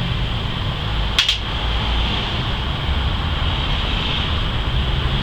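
Steady background hum and hiss with one sharp click about a second in.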